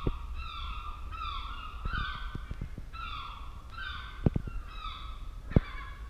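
Gulls calling over and over, about two short falling cries a second. Two sharp knocks come just after 4 seconds and about 5.5 seconds in.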